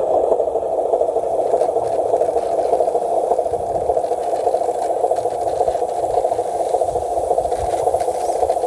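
Steady rattling and scraping of a small motor-driven machine running without let-up.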